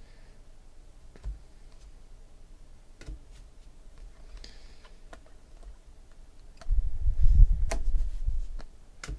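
Panini Prizm chromium basketball cards being flipped and shuffled in the hand, their edges clicking now and then. About seven seconds in, a dull low rumble lasts nearly two seconds and is the loudest sound.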